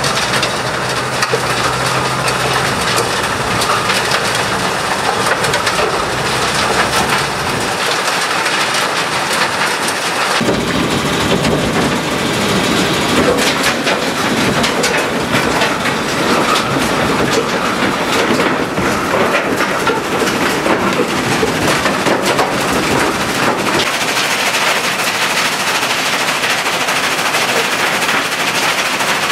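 Maskin Mekano Ls 1202 PD mobile soil screening plant running while screening topsoil: a loud, continuous rattling and clattering of soil clods on the shaking screen mesh and conveyor. A steady low engine hum sits underneath for the first several seconds, and the rattle turns heavier and deeper about ten seconds in.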